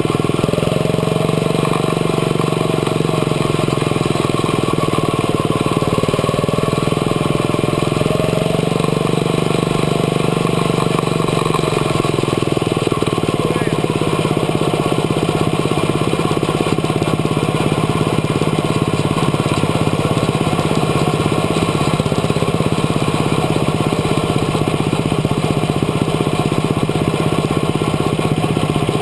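Quarter midget race car's single-cylinder engine running, heard close up from the car's own cockpit. Its pitch wavers for the first several seconds, then holds steady.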